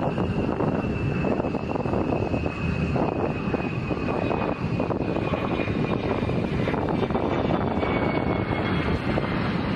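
Single turbofan engine of an F-16 fighter jet running: a steady, loud roar with a thin high whine that slowly falls in pitch.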